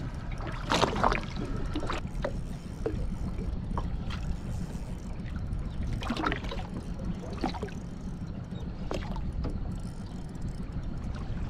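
Steady low wind rumble on the microphone and water lapping against a small aluminium boat's hull, with scattered short knocks and splashes.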